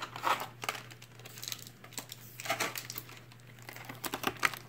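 Clear plastic toy packaging being handled and pulled apart against tape: irregular crinkling with sharp clicks and snaps of the plastic.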